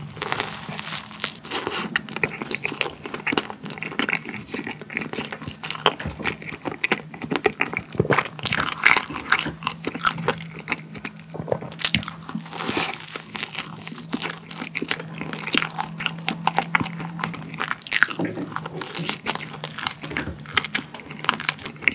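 A person biting into and chewing a soft corn-cream-filled bun (Yonsei milk cream bread), picked up close, with many small mouth clicks throughout.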